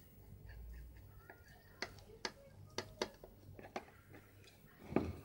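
Kitchen knife cutting syrup-soaked revani in a glass baking dish, its blade clicking against the glass bottom in a few separate sharp ticks, with a louder, duller knock near the end.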